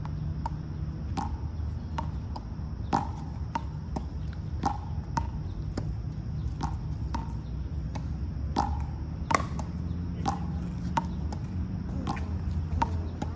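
A squirrel gnawing and cracking peanut shells: sharp, irregular cracks, one or two a second, over a steady low hum.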